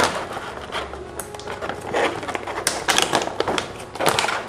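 Metallised plastic wafer pouch crinkling and crackling in irregular bursts as its zipper lock is pulled open by hand.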